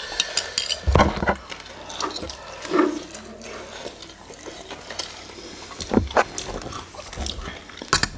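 Close-miked eating sounds: chewing and slurping instant noodles and fried chicken, with irregular wet smacks and clicks and a few dull low knocks.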